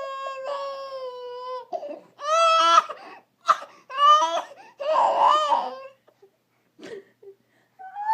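A young child crying: a long wail that slowly falls in pitch, then a string of shorter sobbing cries that die away about two seconds before the end, and a new wail starting at the very end.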